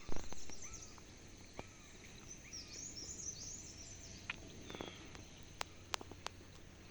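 Rural outdoor ambience with birds chirping in short, curving calls over a low background rumble, with a thump at the very start and a few sharp clicks later.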